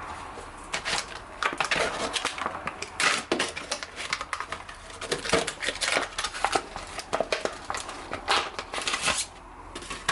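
Packaging being opened by hand to get at a new folding knife: a busy run of crinkling, rustling and sharp clicks that stops about nine seconds in.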